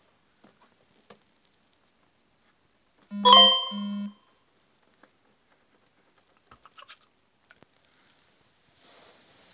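A short electronic chime about three seconds in, several steady tones ringing over a low tone that sounds twice, among faint clicks and rustles.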